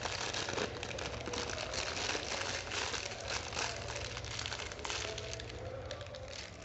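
Clear plastic wrapping crinkling and crackling irregularly as the coiled earphone cable is handled and pulled out of it.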